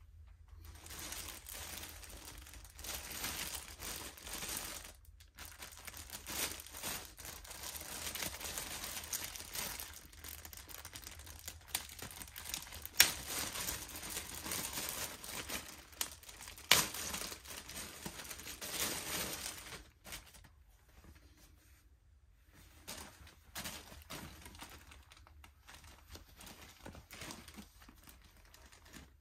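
Clear plastic poly bag crinkling and rustling as it is handled and opened, with two sharp snaps about halfway through. It turns to fainter, sparser rustling for the last third as a cotton jacket is taken out and held up.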